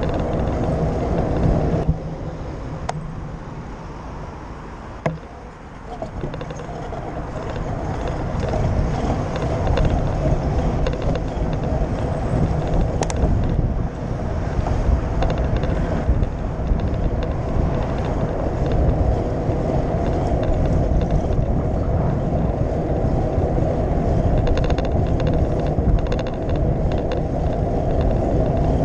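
Wind and road noise on the microphone of a camera riding on a moving bicycle. It is a steady low rumble that drops for a few seconds about two seconds in, then builds back up and holds.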